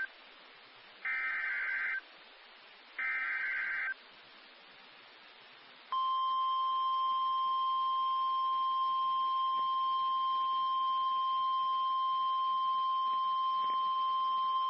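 Emergency Alert System tones announcing a tornado emergency. Two one-second bursts of shrill digital SAME header data sound a second apart, and the end of an earlier burst is heard at the very start. After a short gap, a steady single-pitch attention tone starts about six seconds in, holds for about nine seconds, then cuts off.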